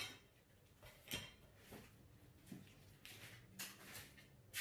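Near silence: room tone with a few faint, scattered clicks and rustles of small things being handled on a table.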